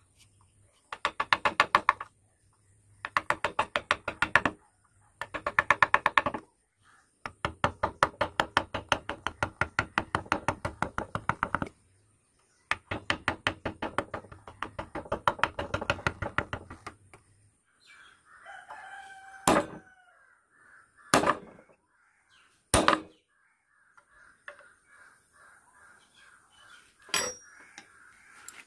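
Wooden mallet tapping a carving gouge into a hardwood relief panel. The taps come in quick runs of about eight light strikes a second, with short pauses between runs. Later come a few single, sharper knocks.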